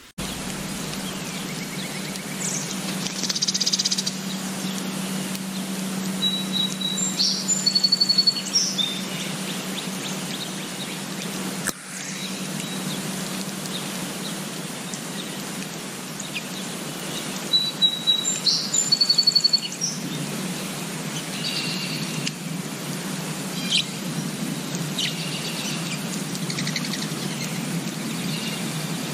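Wild songbirds singing: a bird repeats the same short, high phrase twice, about eleven seconds apart, with scattered chirps between and after, over a steady low hum.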